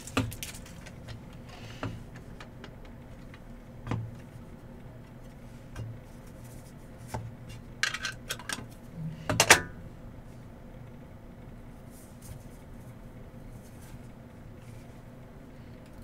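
Trading cards and their packs being handled on a table: scattered light taps and clicks, with a short burst of rustling and crinkling about eight to nine and a half seconds in, the loudest moment. A faint steady low hum lies underneath.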